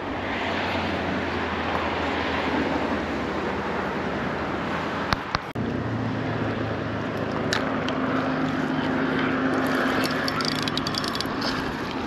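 A steady engine drone over a noisy outdoor haze. Near the end, rapid clicking from a spinning reel being cranked as a small fish is reeled in.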